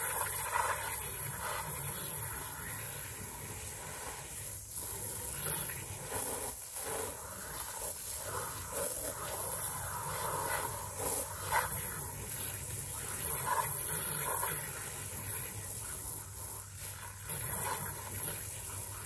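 Garden hose spray wand jetting water onto a fabric yurt window panel to wash it: a steady hiss of spray with water spattering on the fabric, rising and falling a little as the spray moves.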